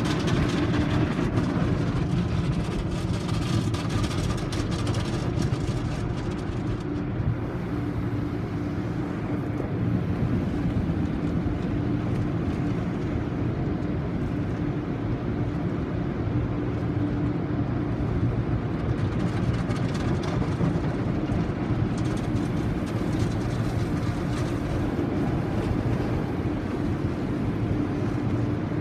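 Automatic tunnel car wash heard from inside the car's cabin: water spraying and splashing on the car over a steady machinery hum. The spray is heaviest for the first several seconds and again a little past the two-thirds mark.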